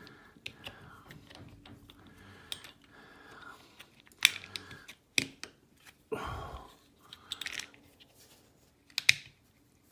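Handling noise from a small aluminium work holder as its spreader jaws are worked: scattered small clicks and scrapes of metal parts, with a few sharper clicks and a longer rustle partway through.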